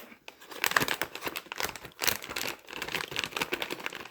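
Plastic snack packaging being handled, crinkling and rustling irregularly.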